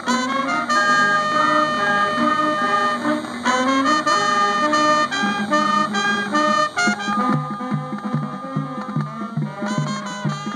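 Marching band playing: brass and woodwinds holding and changing chords over drums, with a sousaphone in the low part. About seven seconds in, low bass notes start pulsing about twice a second.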